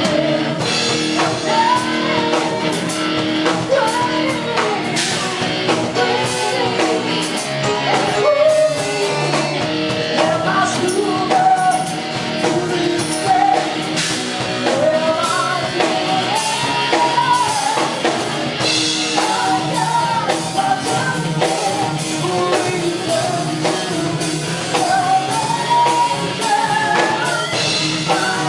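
Live rock band playing: a singer's melody over guitar and a drum kit keeping a steady beat.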